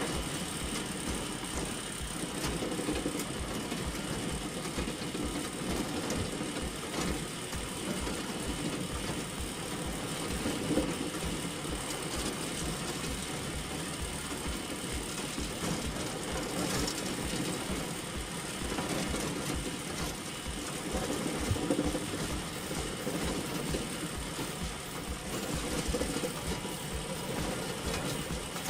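An engine-driven machine running steadily, with a fast, even low pulsing; this is the homemade wheat harvesting machine's motor under test.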